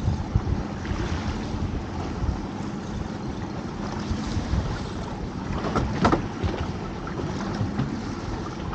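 Wind buffeting the microphone over waves slapping against a small open boat's hull, with a faint steady low hum underneath. About six seconds in there is a brief louder splash as a hooked bass is lifted from the water.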